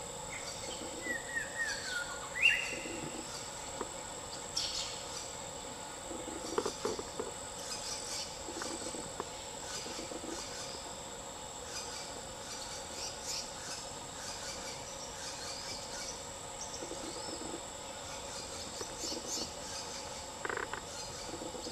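Steady high-pitched insect chorus of crickets or cicadas in the forest, with a few bird calls: a falling whistle about a second in and a short rising one just after. Scattered short clicks and soft knocks come through now and then.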